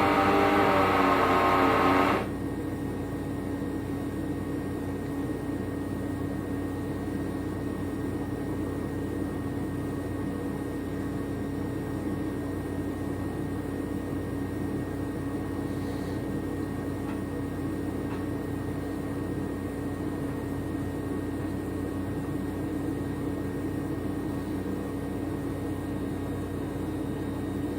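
A louder sound made of many steady tones cuts off suddenly about two seconds in. After that a machine runs with a steady hum and a few fixed tones.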